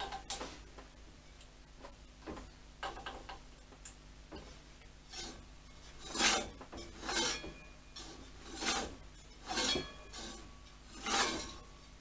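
Soft rubbing and scraping from hands working on the motorcycle's front brake and wheel, coming as five short strokes about a second apart in the second half, over a faint steady low hum.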